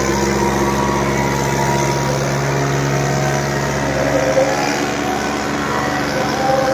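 Tractor diesel engine running steadily with a low drone that weakens about halfway through.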